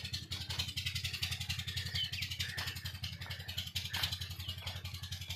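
Engine running steadily at a constant speed with an even chugging beat, about a dozen beats a second.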